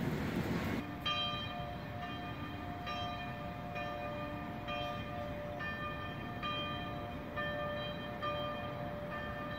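Church bells ringing, a new stroke about once a second over several overlapping tones that hang on. A steady rushing noise cuts off under a second in, just before the bells begin.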